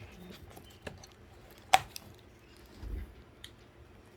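Light clicks and taps from lifting a MacBook Pro's glued battery out of the case, with one sharp click a little under two seconds in and a soft low thump about three seconds in.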